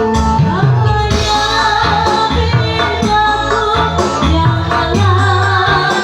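A woman singing a pop song over an electronic keyboard backing with a steady beat. Her voice comes in about a second in, with a wavering vibrato on the held notes.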